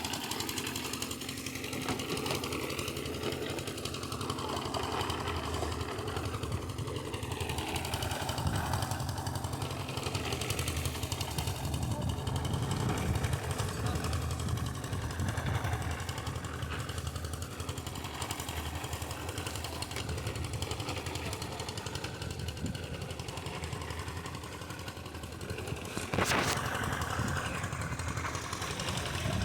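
An engine running steadily with a low, even drone, with a brief sharp noise about 26 seconds in.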